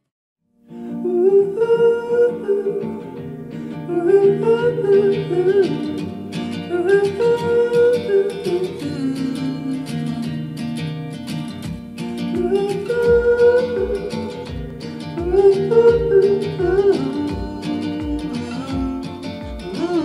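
An upbeat song with guitar and a bending melody line, played through a pair of Audioengine A2+ compact powered speakers and picked up by a room microphone. It starts under a second in after a short silence, and a steady low beat of about two thumps a second comes in about halfway.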